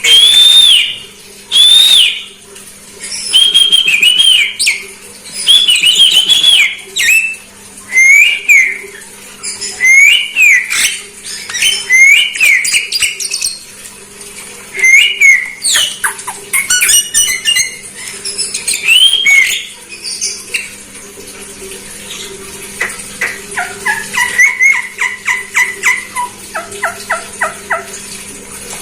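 Javan myna (jalak kebo) calling: a string of loud whistled notes that bend up and down, about one a second, then a fast run of clicking, chattering notes near the end.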